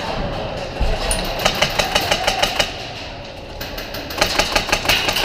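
Airsoft guns firing two strings of rapid shots, about seven sharp cracks a second, each string lasting a little over a second.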